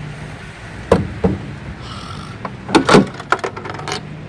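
Sharp knocks and clicks on a coin-operated soda vending machine after it has eaten a quarter, the loudest cluster about three seconds in, over a steady low hum.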